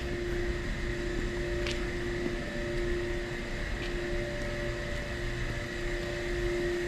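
Subway station ambience: a steady mechanical hum with two held tones over a low rumble, and a couple of faint clicks.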